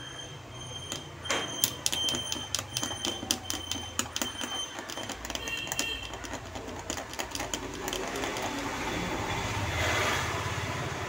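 Pointed blade scratching and cutting through copper traces on an LED TV panel's flex cable, a fast irregular run of small clicks and scrapes that eases into a softer scrape near the end. The lines are being cut to isolate a short on the panel that is stopping its supply voltage.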